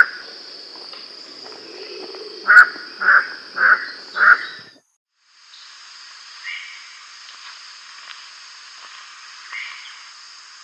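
Andaman crake calling: short, loud, harsh notes, one at the start and then four in quick succession about two and a half seconds in, over a steady high buzz. After a short break, a steady hiss with a few faint chirps.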